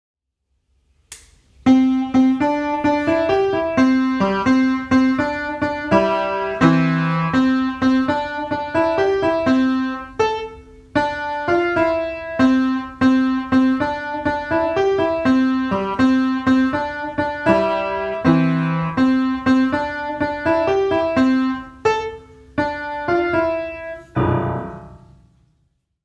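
Piano music: a quick repeating melody over a recurring low figure, starting about a second and a half in and ending shortly before the close.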